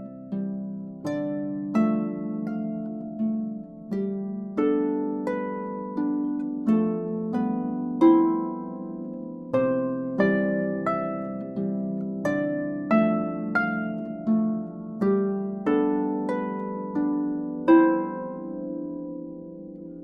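Harp played solo: a melody of single plucked notes, one or two a second, each ringing on under the next.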